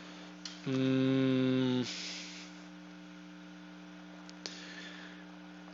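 A man hums a thoughtful "hmm" on one steady pitch for about a second, over a steady electrical mains hum; a couple of faint clicks follow later.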